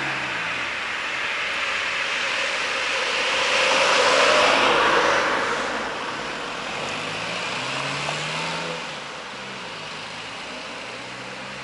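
Passenger train rolling away along the track: a broad rushing rumble that swells to its loudest about four to five seconds in, then fades, leaving a low hum.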